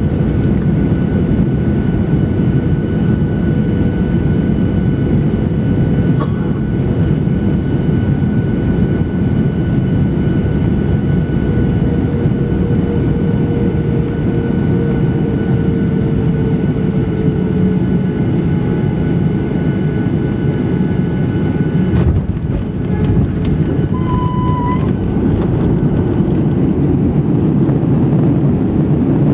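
Airliner cabin noise during landing: a loud, steady rush of engine and airflow with faint whining tones, one sinking slightly in pitch midway. A single sharp knock about 22 seconds in, followed by a brief higher tone.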